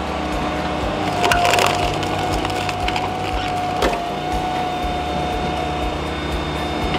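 Brute Force 14-24 firewood processor running steadily with a constant machine whine while a log is split. Wood cracks and splinters loudest about a second in, with one sharp crack about four seconds in.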